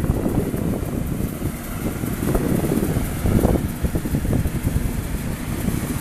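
Yanmar YH850 rice combine harvester running as it cuts and threshes through the crop, an engine-and-machinery drone under heavy wind buffeting on the microphone.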